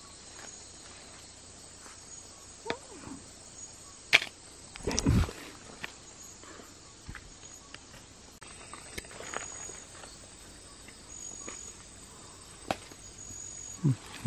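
Night insects, crickets, chirping: short high chirps every second or two over a faint hiss. Scattered clicks and knocks, with a sharp click about four seconds in and a low thud just after, the loudest sound.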